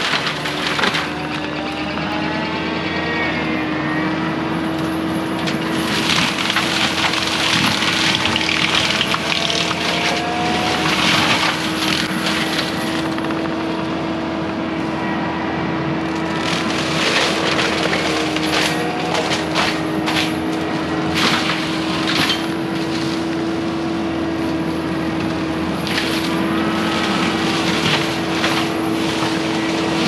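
Prinoth M450s-1600 skid steer mulcher at work: the carrier's engine and the spinning mulcher drum give a steady drone with a constant hum, and several stretches of crackling and snapping come as the teeth grind through brush and wood.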